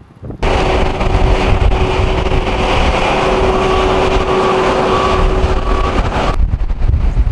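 Vehicle engine running with a steady hum, cutting in suddenly just after the start and cutting out abruptly about a second before the end; wind buffeting the microphone on either side.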